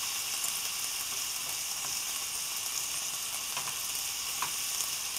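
Thinly sliced ribeye steak, onions and yellow peppers frying on high heat in a small non-stick pan: a steady sizzling hiss with a few faint pops.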